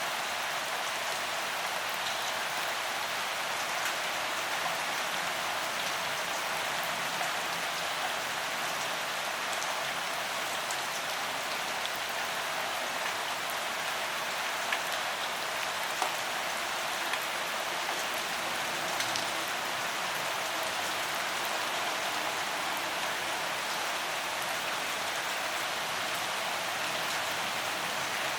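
Steady rain falling, an even hiss with scattered individual drops ticking now and then.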